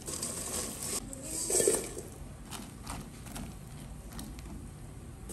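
Dry instant noodle blocks sliding from a bowl into a pot of boiling water, with the water bubbling and hissing and a louder splash about a second and a half in. After that it is quieter, with a few light knocks.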